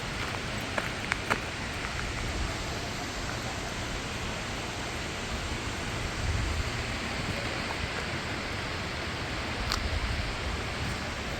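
Steady rushing noise of a waterfall, even and unbroken, with a few faint clicks in the first second or so.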